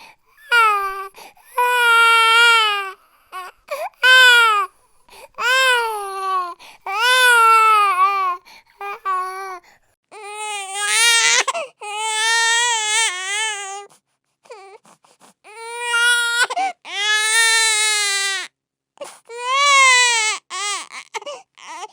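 Baby crying hard: a string of loud, high-pitched wails, each one to three seconds long with a wavering pitch, broken by short pauses for breath.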